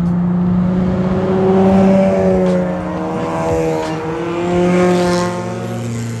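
Several cars passing close by one after another, among them a modified Mazda Miata, with engines revving as they accelerate. The engine note rises and falls as each goes by, loudest about two seconds in and again near five seconds.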